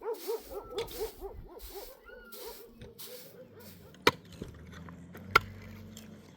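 A dog whining and yelping in a quick run of short cries, about four or five a second, for the first three seconds or so. After that a low steady hum sets in, and two sharp clicks sound about four and five seconds in.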